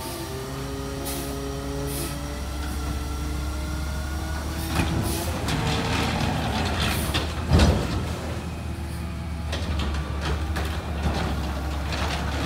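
McNeilus ZR automated side-loader garbage truck running on natural gas, its engine revving up with a slowly rising pitch as the hydraulic arm grabs and lifts a recycling cart. Then comes a series of knocks and bangs as the cart is tipped into the hopper and set back down, the loudest bang about seven and a half seconds in.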